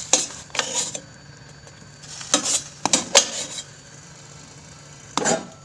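Metal utensil and dishes clinking and clattering in a few short bursts as steamed vegetables are lifted out of the steamer and set down in a dish: a couple of knocks at the start, a cluster about two and a half to three seconds in, and more clatter near the end.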